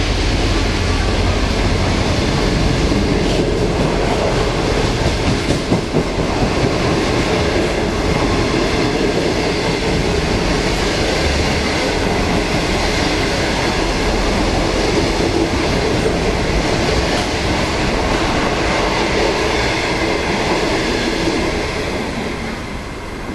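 Intercity passenger train's coaches rolling past at speed, a loud steady rumble and clatter of wheels on the rails that drops off as the last coach clears, about 21 seconds in.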